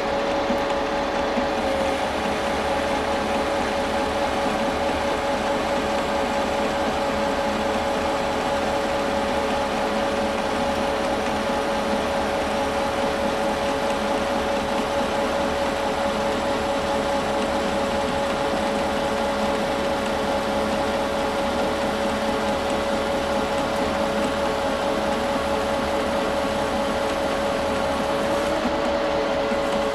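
Metal lathe turning a 4140 steel bar at about 600 RPM under power feed, a carbide insert taking a cut along it. The machine runs steadily with a constant whine over a noisy hum.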